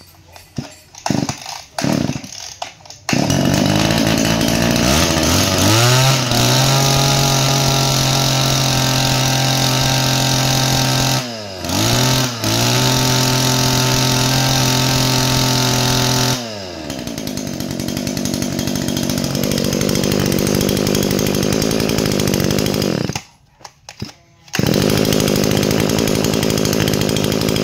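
Small Mitsubishi T140 two-stroke brush-cutter engine head, 23cc, recoil-started with a few pulls. It catches about three seconds in, revs up and holds high speed with a brief dip, then drops back to a slower idle. It cuts out near the end and is quickly run up again. It runs crisply, freshly serviced and in good running order.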